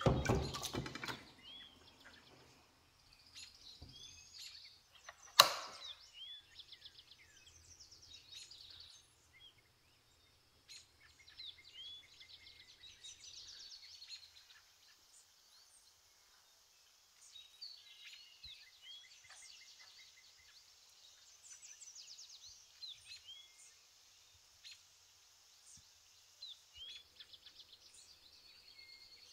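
Small birds chirping and trilling. At the start comes a knock and splash of the cast iron waffle maker being set into a plastic tub of water, and about five seconds in a single sharp click.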